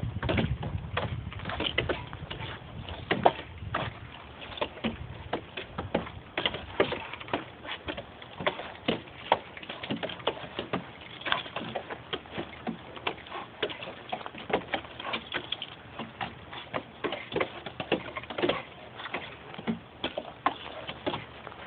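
Steel climbing gaffs of pole climbers biting into wooden utility poles as several climbers step on the poles, an irregular patter of sharp knocks and clicks, several a second.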